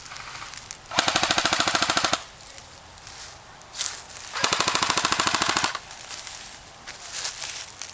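Airsoft guns firing in a game: two rapid full-auto bursts of a little over a second each, with a few scattered single shots between them.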